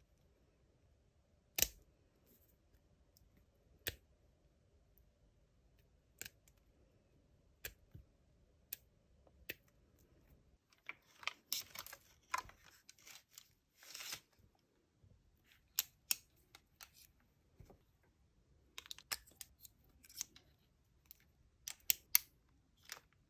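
Small flush-cutting nippers snapping through long artificial nail extensions, one sharp snip every couple of seconds. From about halfway through come denser clicks and rattles as an electric nail drill's handpiece is handled and a bit is fitted; the drill is not running.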